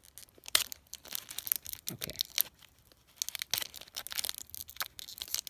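Foil Pokémon booster pack crinkling and being torn open by hand: a run of short crackles and rips, with a brief pause a little past halfway.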